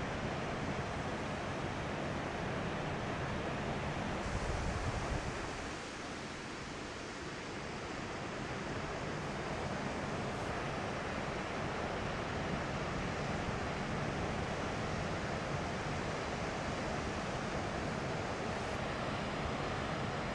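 Ocean surf breaking and washing, with wind blowing across the microphone. A louder low rumble comes about four seconds in.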